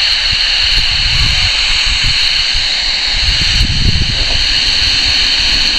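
Loud, steady static hiss from an unsquelched Harvard WT1 27 MHz CB walkie-talkie's speaker while it receives, cutting off abruptly near the end. The other station's transmission is at most faintly heard deep in the noise, too weak to make out.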